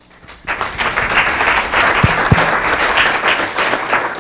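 Audience applauding, starting about half a second in.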